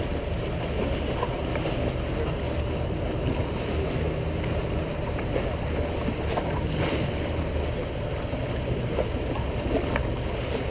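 Steady low rumble of a small boat under way: its motor running with water splashing along the hull.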